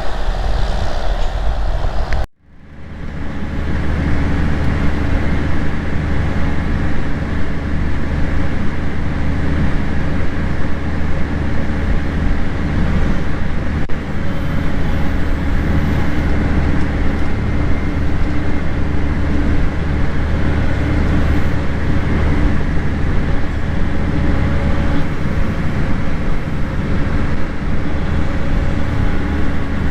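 Heavy farm machinery engine running steadily with a low drone. The sound cuts out abruptly about two seconds in and fades back up over the next second or two.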